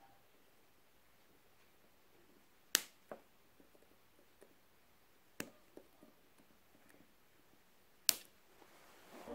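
Sharp metallic clicks from pliers working a small steel pin into a plastic doll's hip axle. There are three louder snaps a few seconds apart, each followed by a softer click.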